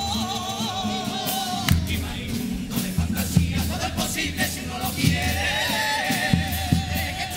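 Cádiz carnival comparsa singing in chorus, several voices holding long notes in harmony, over guitars and a steady drum beat.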